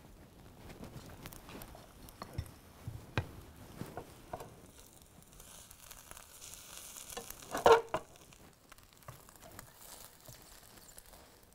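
An omelette sizzles in a frying pan while a spatula scrapes and taps against the pan. One sharp knock with a short ring, the loudest sound, comes about two-thirds of the way through as the omelette is worked loose to slide onto a plate.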